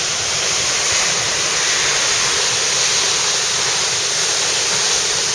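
Loud, steady rush of falling water from Wailua Falls, a 173-foot twin waterfall.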